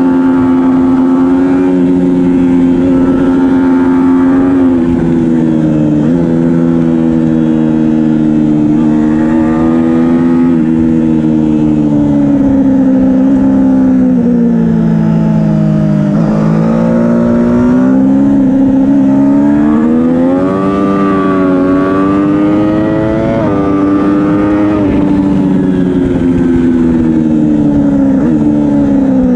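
Triumph Daytona 675R's inline three-cylinder engine at high revs under racing load. Its pitch rises and falls as the rider accelerates, shifts and rolls off through corners, with several quick drops and one longer dip about halfway through.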